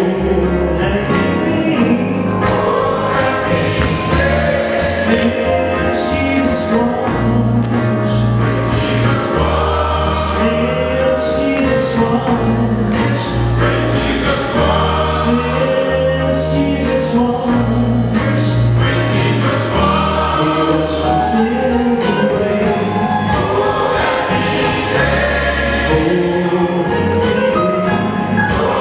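Gospel choir singing with instrumental backing, including bass and cymbals, steady and loud throughout.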